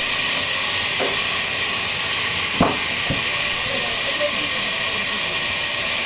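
Sawmill machinery running with a steady, loud hiss, with a few sharp knocks of wood or metal, the loudest about two and a half seconds in.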